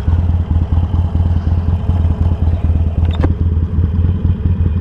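Harley-Davidson Sportster Iron 883's air-cooled 883 cc V-twin idling at a stop with a steady pulsing beat. A short click comes about three seconds in.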